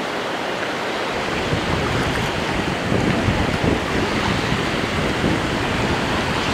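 Ocean surf washing over the sand at the water's edge, a steady hiss of water, with wind noise on the microphone coming in from about a second and a half in.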